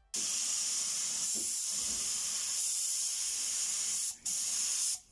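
Compressed-air paint spray gun spraying black paint onto a knife handle: a steady high hiss, broken once about four seconds in, then a short second burst that cuts off.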